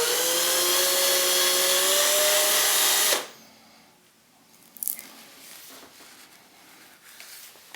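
Power screwdriver (drill-driver) spinning at speed to twist steel fishing leader wire into a loop, its motor whine steady and slowly rising in pitch; it stops abruptly about three seconds in. A single light click follows.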